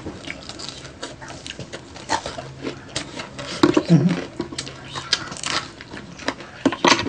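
Close-miked eating sounds: crispy deep-fried pork knuckle skin crackling and crunching between the teeth, with chewing and lip smacks, the loudest crunches about four and seven seconds in.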